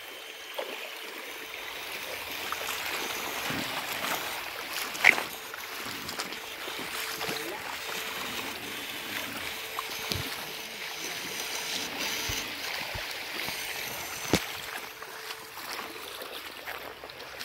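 Shallow river running over stones, with water sloshing and splashing as people wade through it. Two sharper splashes or knocks stand out, about a third of the way in and again near the end, over a faint steady hum.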